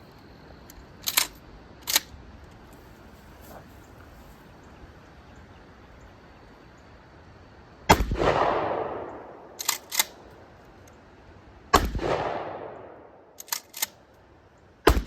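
12-gauge pump-action shotgun fired three times, about four seconds apart from about eight seconds in, each shot trailing off in a long echo. A quick double clack between shots is the slide being pumped, and there are two sharp clicks in the first couple of seconds.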